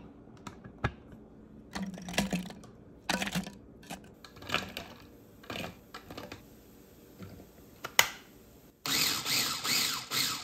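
Plastic food processor bowl and lid being handled, with scattered clicks and knocks as vegetables are dropped in and the lid clicks shut. About a second and a half before the end the food processor starts chopping the vegetables in short, loud pulses, about four in quick succession.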